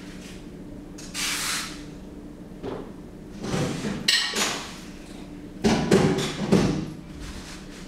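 Close-miked knocks and taps in several short clusters, the loudest about six seconds in, with a brief glassy ring about four seconds in.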